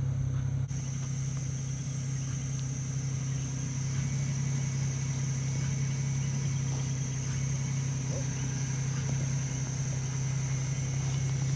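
A steady low motor hum, like an engine idling, runs on unchanged, with a constant high-pitched insect drone above it. A few faint scrapes come from hands digging in loose dirt.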